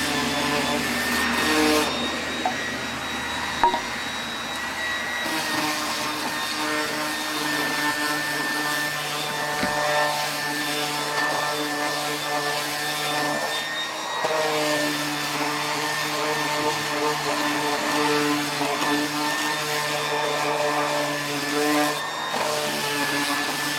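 Electric power sander running: a steady motor hum with noisy grinding, its tone shifting a few times.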